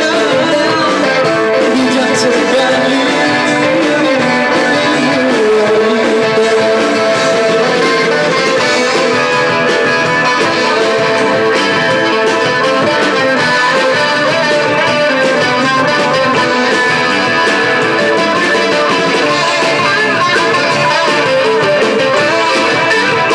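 Live rock band playing an instrumental passage: electric guitars leading over bass guitar and drums, with little or no singing.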